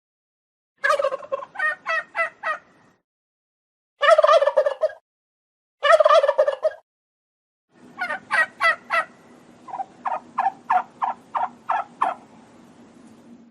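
Turkeys gobbling: four separate gobbles, each a fast rattling run of notes, with silent gaps between them. The last gobble is the longest and has a faint steady hum beneath it.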